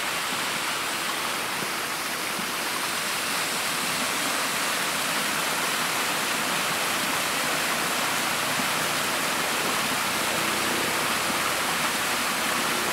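Small waterfall cascading down a rocky gully into a pool: a steady rush of falling water.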